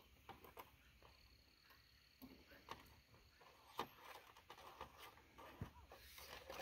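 Near silence, with a few faint clicks and taps from hands handling a balsa model airplane and its flight box.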